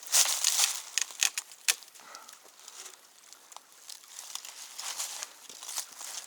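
Footsteps crunching and rustling through dry leaf litter and brush, with irregular sharp crackles, heaviest in the first two seconds.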